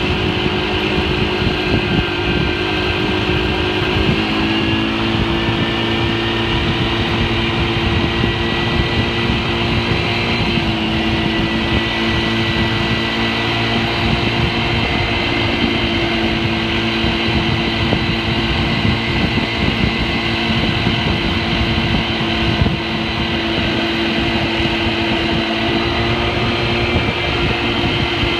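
Honda 300EX ATV's single-cylinder four-stroke engine running at a steady, nearly constant pitch, stepping up slightly about four seconds in and again around ten seconds, over a steady low rumble.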